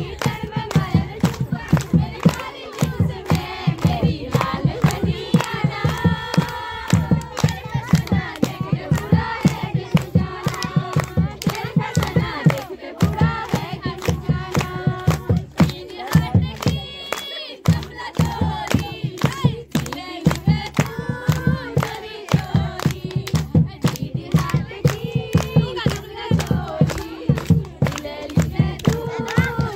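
A group of women singing a Holi folk song together, with steady rhythmic hand-clapping keeping the beat.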